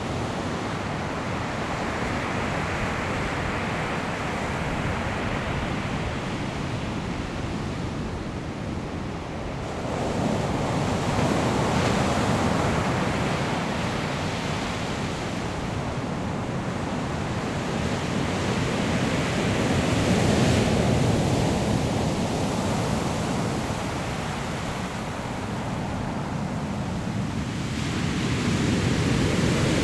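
Sea waves breaking on a pebble shore, a steady wash of surf that swells three times, about ten seconds in, around twenty seconds in and near the end. Wind is heard on the microphone.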